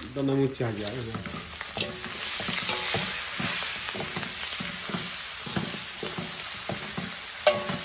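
Meat and greens sizzling in a hot steel wok while a metal spoon scrapes and turns them in repeated strokes. The sizzle swells about a second in, and near the end the spoon knocks sharply once against the wok.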